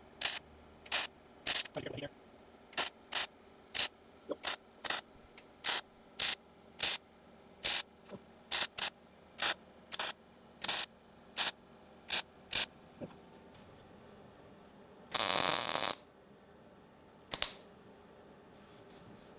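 MIG welder laying a rapid string of short tack welds on thin jeep-body sheet metal, each a brief crackling burst, about two a second, stitching a patch panel in place. They stop after about 13 seconds; one longer, louder burst follows a couple of seconds later, then a single short one.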